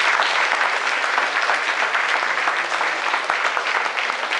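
Applause: many hands clapping together in a dense, steady patter that thins slightly near the end.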